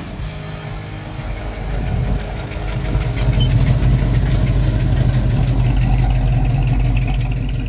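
Late-1960s Plymouth Barracuda convertible's engine running at low speed as the car drives slowly past close by, with a steady low note that grows louder about two to three seconds in.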